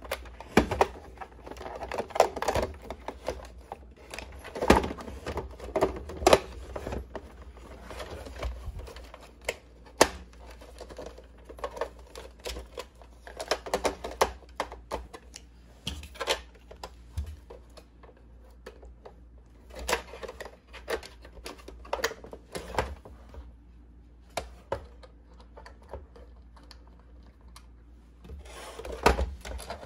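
Irregular plastic clicks, taps and rattles, some in quick clusters, from hands handling a plastic toy remote-control Toyota Hilux pickup while a rechargeable battery pack is fitted into its battery compartment.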